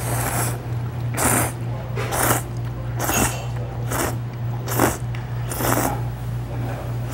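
A person slurping ramen noodles in a series of short slurps, about one a second, over a steady low hum.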